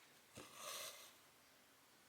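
A soft tick as a needle goes through 14-count cross-stitch fabric, then a brief rasping hiss of cotton thread being drawn through, about half a second long. Otherwise near silence.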